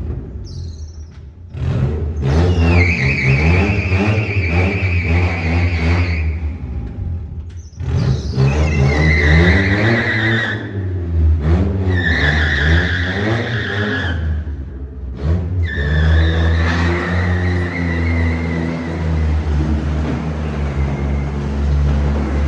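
Honda Civic's engine revving hard while its front tyres spin and squeal on a concrete floor, in several runs with short breaks between them.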